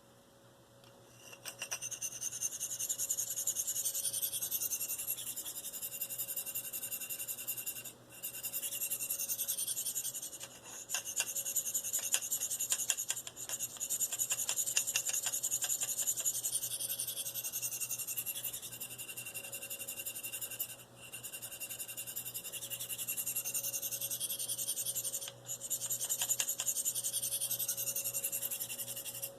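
Steel knife edge stroked freehand along a Spyderco fine ceramic sharpening stone, with only the weight of the hand as pressure: long continuous hissing scrapes lasting several seconds each, broken by a few brief pauses.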